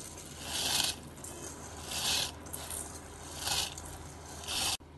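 Soaked basmati rice scraped out of a steel bowl into a pressure cooker of broth: four short scrapes of wet grains sliding over metal, about a second and a half apart.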